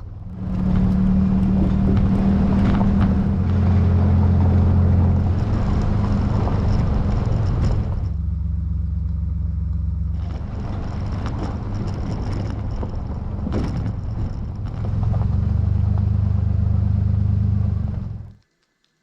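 Motor vehicle driving, its engine and road noise a steady low hum that swells louder twice, then cuts off suddenly near the end.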